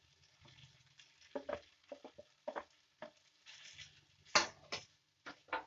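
Wooden spatula stirring and turning boiled vermicelli in a non-stick frying pan: a series of irregular short scraping strokes against the pan. The loudest stroke comes a little past four seconds in.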